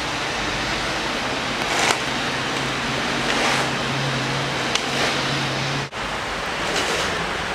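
Outdoor street ambience in a snowstorm: a steady hiss with a low vehicle engine hum in the middle and a few brief scraping sounds. The sound drops out sharply for a moment about six seconds in.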